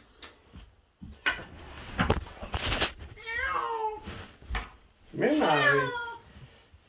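Domestic cat meowing twice: a short meow, then a longer, louder yowl that falls in pitch. These are the complaining cries of a cat hiding from being caught. Before them comes a stretch of scuffling and rustling.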